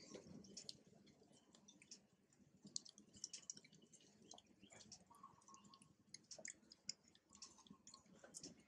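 Near silence, with faint, scattered clicks and ticks.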